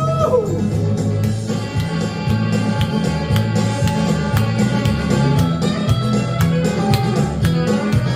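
Instrumental break with guitar: picked lead notes over a steady, rhythmic bass line. A long held, bent note falls away about a third of a second in.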